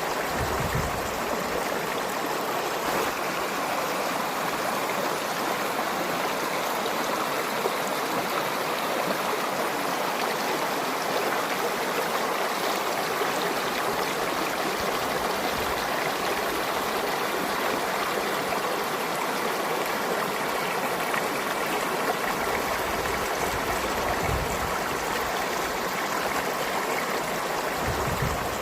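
A river or forest stream flowing with a steady, even rush of water.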